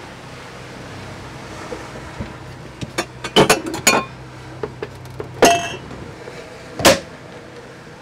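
Glass jar mugs and a copper mug knocking together on a galley cupboard shelf as they are handled. A cluster of clinks comes about three seconds in, one rings briefly a little after five seconds and a last one follows near seven seconds, over a steady low hum.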